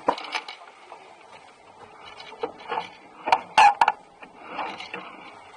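Sharp knocks and clatter aboard a small sailing dinghy under way, over a low wash of wind and water. A cluster of loud knocks about three and a half seconds in.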